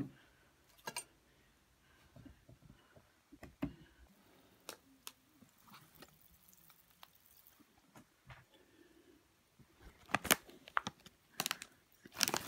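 Sparse small clicks and taps from handling things at a table, then a foil crisp packet crinkling loudly from about ten seconds in as it is picked up and handled.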